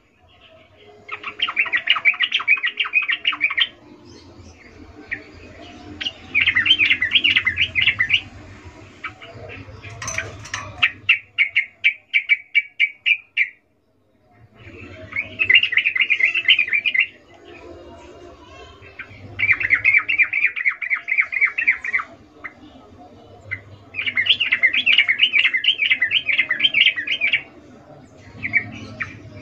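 Female yellow-vented bulbul (trucukan) giving its breeding-season call: bouts of fast chattering notes, each two to three seconds long, repeated every few seconds. One bout midway is a slower run of separate chips. This call is used as a lure to draw males into singing.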